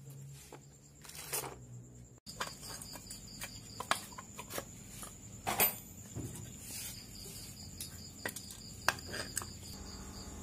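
Scattered light clicks and taps of small metal parts being handled and fitted while a two-stroke chainsaw engine is assembled, the finned cylinder going on over the piston.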